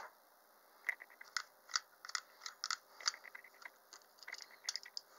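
Ratchet pruning shears clicking and crunching through a woody cutting in stages: a run of sharp, irregular clicks about two a second as the handles are squeezed again and again and the ratchet advances the blade.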